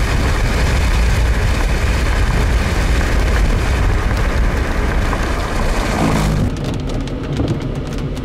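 Loud wind and road noise rushing over the microphone of a moving vehicle. About six seconds in it cuts abruptly to a quieter car cabin with a steady low engine hum and light ticks.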